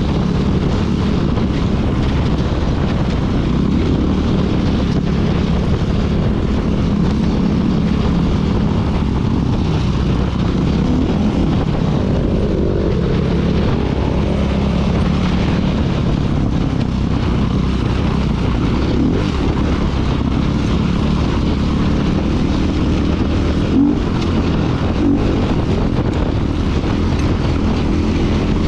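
2016 KTM 500 EXC's single-cylinder four-stroke enduro engine running steadily under way, its pitch holding fairly even.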